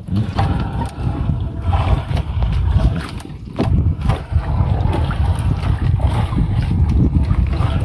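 Water splashing and sloshing around a small fishing boat as the net is worked, with frequent short knocks over a steady low rumble.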